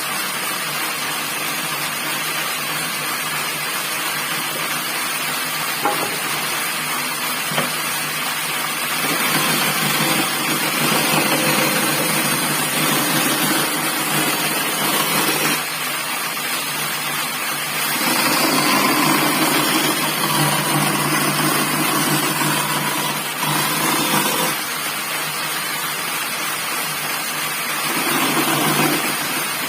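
Homemade teak-framed 16-inch bandsaw running with a steady motor-and-blade noise. The noise grows louder in several stretches of a few seconds.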